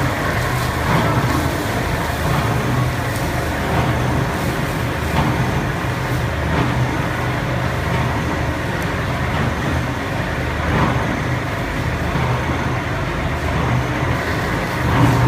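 Industrial machinery running steadily: a low hum under a constant mechanical noise, with a few faint clicks.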